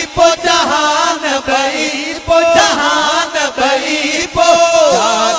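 Sindhi devotional naat chanted by men's voices, with long wavering held notes and no clear words.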